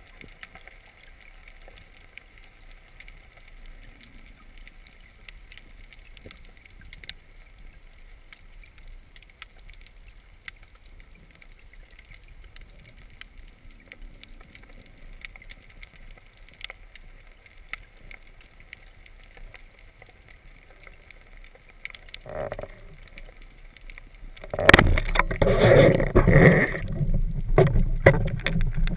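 Underwater ambience: a faint steady hiss with scattered small clicks and ticks. A short rush of water comes about 22 seconds in, and then, with about four seconds left, loud churning, splashing and bubbling water starts as the swimmer moves up near the surface.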